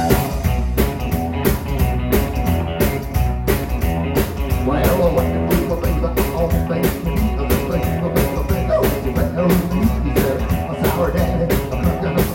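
Live rockabilly band playing: electric guitar, upright double bass and drum kit, with a steady driving beat of sharp drum hits.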